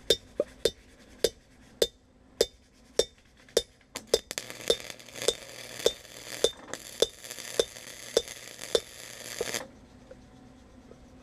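Light hammer taps on steel in a steady rhythm, about one strike every half-second or so, each with a short metallic ring. A steady hiss with a low hum runs under the taps for about five seconds in the middle.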